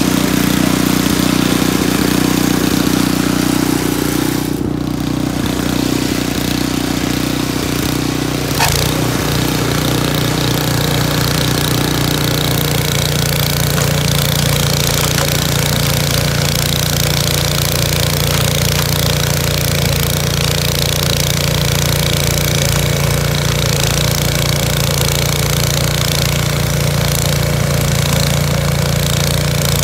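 A two-stage snow blower's small gasoline engine runs steadily while the machine clears snow. About nine seconds in there is a single sharp clunk, and after it the engine's note settles lower.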